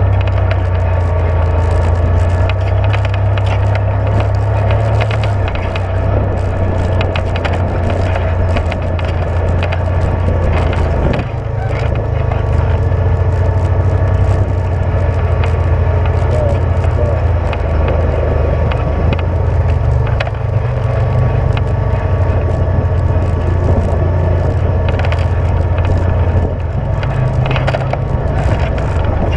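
Side-by-side UTV engine running steadily while driving a rough dirt trail, with clatter and rattles from the ride over the ground. The engine eases off briefly about eleven seconds in and again near the end.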